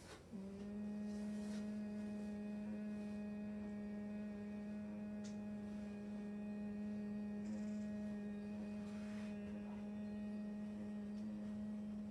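A woman humming with closed lips in Bhramari (humming bee) breath: one long, steady hum that starts about half a second in and holds the same low pitch throughout.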